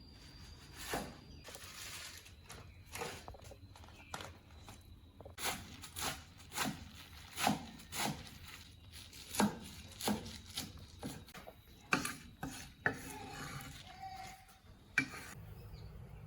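A run of irregular sharp knocks and taps from kitchen food preparation, like wood-on-wood contact and utensils on a board, coming thick about a third of the way in and thinning out near the end.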